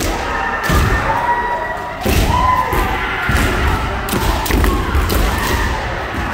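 Kendo practice in full swing: repeated heavy thuds of feet stamping on a wooden floor, sharp clacks of bamboo shinai strikes, and overlapping kiai shouts from many practitioners.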